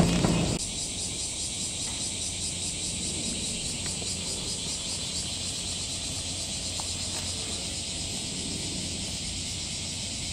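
A steady, shrill chorus of cicadas buzzing with a fast, even pulsing. A car's engine fades out about half a second in.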